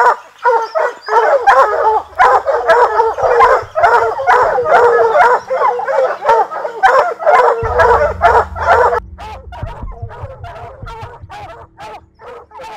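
A pack of Walker hounds baying treed, many dogs barking over one another at a black bear up a tree; their barking is the tree bark that tells the hunters the bear is caught. The barking thins out and gets quieter after about nine seconds.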